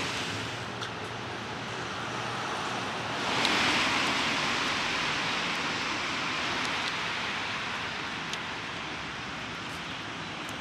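Steady hiss of city traffic on wet streets, swelling once about three seconds in.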